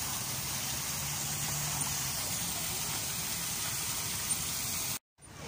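Lake fountain jets spraying, a steady hiss of falling water over a low steady hum; it cuts off suddenly about five seconds in.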